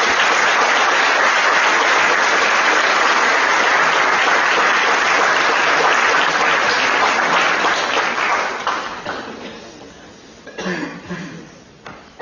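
Audience applauding steadily, then the clapping dies away about eight to ten seconds in, leaving a few voices.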